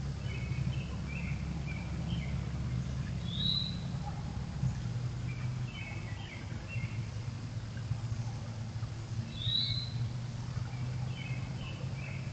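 Wild birds calling: scattered groups of short chirps, and twice a clear upward-slurred note about six seconds apart. Under them runs a steady low rumble.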